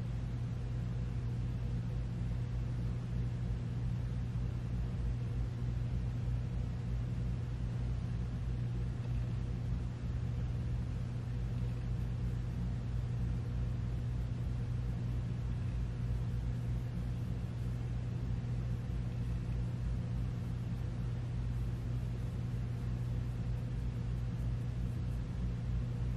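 Steady low hum of room background noise with a faint steady higher tone above it. It is unchanging apart from a brief dip about ten seconds in.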